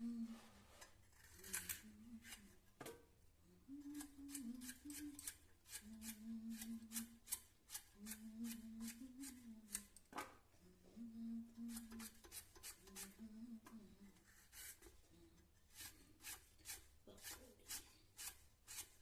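A person softly humming a tune in short phrases, over a run of small sharp clicks from kitchen work that come thicker in the last few seconds.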